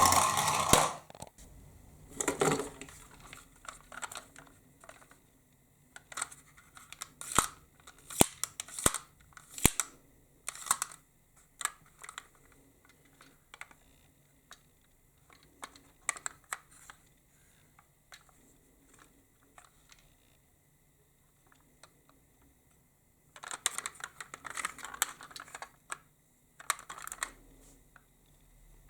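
Toy minicars being handled: scattered plastic clicks and clacks. About three-quarters of the way through, a toy car rattles for about three seconds as it rolls down a slope.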